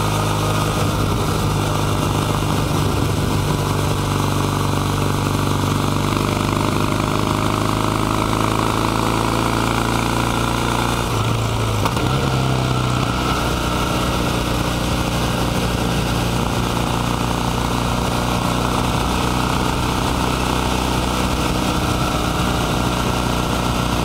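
Kawasaki W800 Cafe's air-cooled 773 cc vertical-twin engine with 360° crank, running steadily under way, with road and wind noise. The engine note changes briefly about halfway through.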